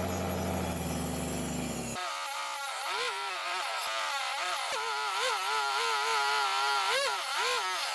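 Mini table saw driven by twin DC 775 motors, running with a high whine. From about two seconds in, the pitch sags and recovers again and again as the blade bites into wood and the motors slow under load.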